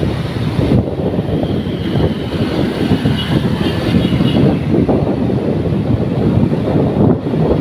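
Motorcycle riding on a road: steady wind buffeting on the microphone over the engine and road noise.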